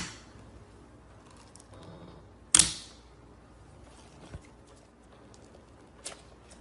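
Slime being handled close to the microphone: a loud, sharp smack at the start and another about two and a half seconds in, then a few fainter clicks and pops.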